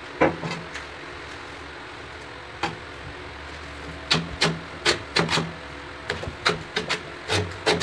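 Steel trowel clinking and scraping as cement mortar is scooped from a metal pan and spread on a concrete kitchen counter. A few scattered clicks at first, then a quick run of sharp clicks and taps in the second half.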